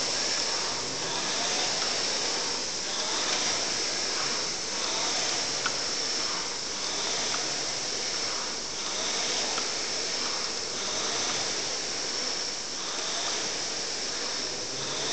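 Indoor rowing machine's fan flywheel whooshing with each stroke, surging and easing about once every two seconds at a steady pace. One short sharp tick about five and a half seconds in.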